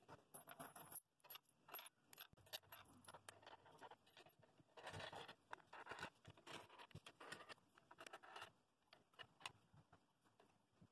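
Faint clicks, light metal jingles and short scrapes of washers and wing nuts being fitted onto the threaded rods of a bolt-and-plywood glue-up press, with the plywood press plate being handled, as a glued segmented wooden bowl is clamped.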